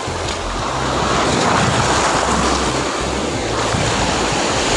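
Shallow sea surf breaking and washing foamily up the beach, swelling louder about a second in, with wind rumbling on the microphone.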